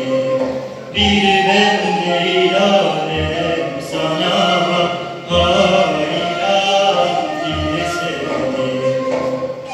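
A man singing a Turkish Islamic hymn (ilahi) in long, held, chant-like phrases into a microphone, amplified through the hall's sound system, with musical accompaniment and a few low thuds.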